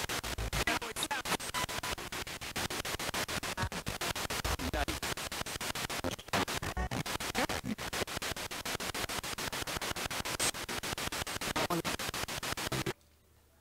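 Spirit box (ghost box) sweeping through radio stations: a fast, even chopping of static, many pulses a second. It cuts off abruptly near the end.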